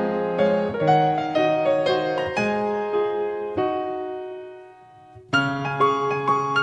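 Background piano music: a slow melody of single struck notes, each ringing and dying away. It fades out about four seconds in and starts again a little more than a second later.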